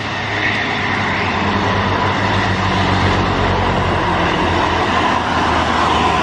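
A heavy diesel vehicle climbing the grade, its engine droning steadily and loudest two to four seconds in, with a thin steady whine above the drone.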